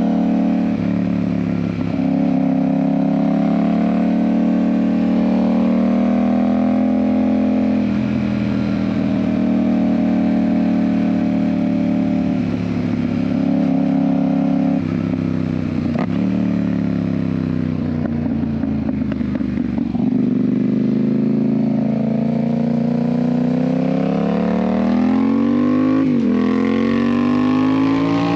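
Yamaha MT-07's parallel-twin engine through an IXIL aftermarket exhaust, running under way on the road. The engine note holds fairly steady with a few brief dips as the throttle is eased or a gear is changed, then rises steadily near the end as the bike accelerates.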